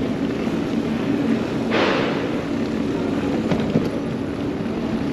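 Wind rumbling on the microphone of a camera on a moving e-bike, with a short hiss about two seconds in.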